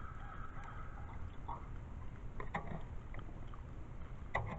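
Muriatic acid pouring from a plastic jug into a small glass bottle, a thin pitched trickle in the first second. A few handling knocks follow, the loudest near the end, over a steady low wind rumble on the microphone.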